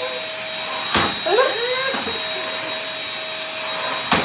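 Vacuum cleaner running steadily, its motor giving a constant high whine. A sharp knock comes about a second in, a short call rising and falling follows just after it, and another knock comes near the end.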